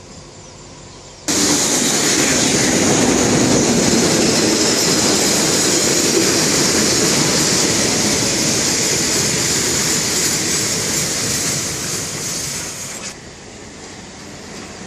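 A train passing close by, a loud rush of wheels on rails that starts suddenly and lasts about twelve seconds before dropping away.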